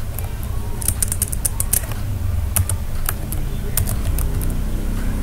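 Computer keyboard keys clicking as a word is typed: a quick run of keystrokes about a second in, then scattered single key presses, over a steady low hum.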